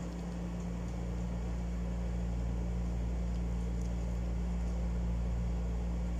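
Steady low machine hum with a constant hiss, like a room appliance running, with a few faint light clicks from the plastic and metal parts of a spinning reel being handled.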